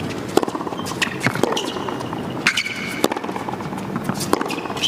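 Tennis rally on a hard court: sharp pops of racket strikes and ball bounces every half second to a second, with short high shoe squeaks, over a low crowd hum.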